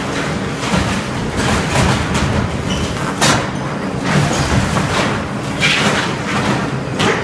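Caterpillar 226B skid steer loader's diesel engine running steadily under load as its grapple crushes a wooden rack, with several sharp cracks and thuds of splintering and falling boards.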